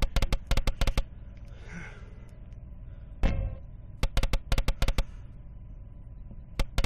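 Aristocrat '50 Dragons' online slot game's reel sound effects on auto spin: three quick runs of sharp clicks, each about a second long, as the reels spin and stop, with one louder single knock about halfway through.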